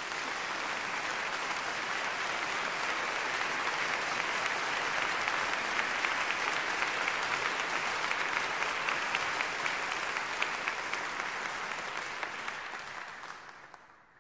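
Opera house audience applauding: dense, steady clapping that fades away near the end.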